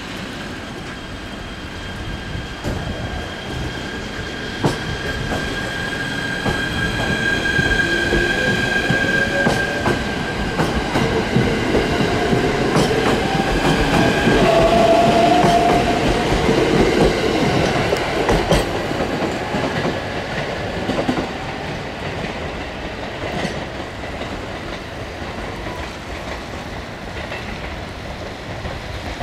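JR East E129 series electric train pulling away from a station: the motors whine, rising in pitch as it gathers speed, and the wheels click over rail joints. It is loudest as the cars pass about halfway through, then fades as it goes away.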